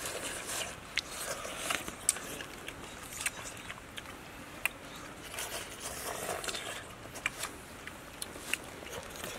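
Eating sounds: spoons clicking and scraping against bowls and a pot, with some chewing. Sharp clicks come irregularly, about one or two a second.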